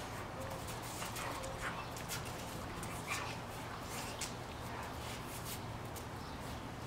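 Two young American Staffordshire/pit bull terrier mix dogs play-wrestling, giving a few brief dog vocal sounds among scattered short scuffs and clicks of paws on concrete.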